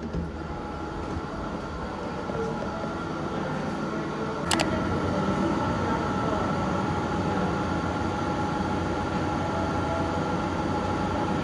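Steady room noise in a lab classroom, with a constant hum that slowly grows louder, and a single sharp click about four and a half seconds in.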